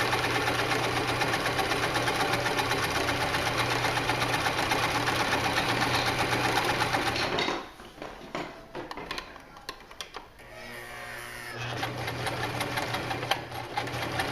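Janome HD1000 sewing machine running fast, a rapid steady clatter of stitches. It stops about halfway through, leaving a few scattered clicks, then starts stitching again more quietly near the end.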